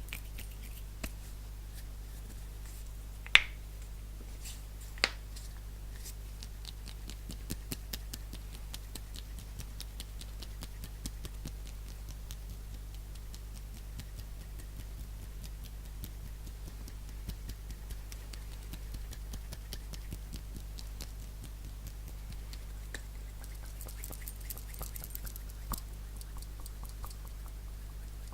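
Close-miked hand sounds: a dense run of fast, light finger and nail taps and clicks, with two sharper clicks about three and five seconds in, over a steady low hum.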